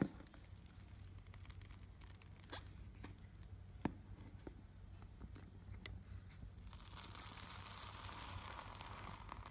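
Foam-bead slime crackling and crunching as a hand works into it: scattered small clicks and pops at first, then from about seven seconds in a dense, continuous crackle.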